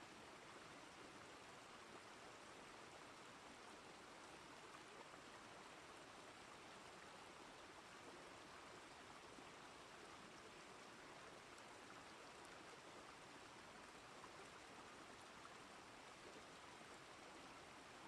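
Faint, steady rush of a waterfall pouring into a rock pool.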